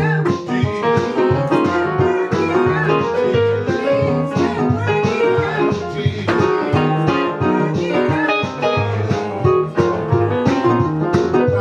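Instrumental music with guitar and a steady beat.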